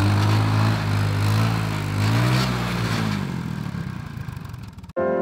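Honda ATC three-wheeler's single-cylinder engine revving up and easing off as the trike slides on ice with little traction, rising in pitch about two seconds in and then fading as it pulls away. It cuts off abruptly near the end.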